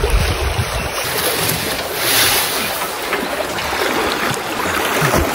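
River water sloshing and splashing around a man wading chest-deep while he pushes a metal drum. Wind rumbles on the microphone in the first second.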